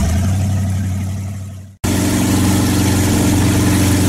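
Motorboat engine running steadily, fading down and cutting out about two seconds in, then coming back louder and busier with the rush of the churning wake.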